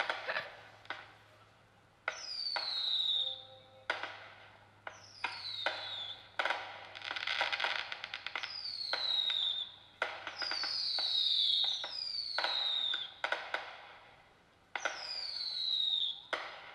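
Fireworks going off: a high falling whistle about every two seconds, each one with sharp bangs and crackling.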